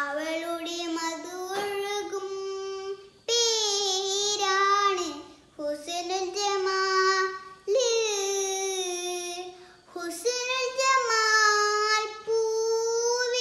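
A young girl singing a Malayalam Mappila song unaccompanied, in long held phrases with wavering ornaments, pausing briefly for breath every two or three seconds.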